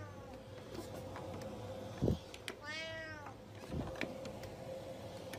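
A domestic cat meows once, a drawn-out meow that rises and falls in pitch, just past the middle. Shortly before it comes a soft thump, with a fainter one after.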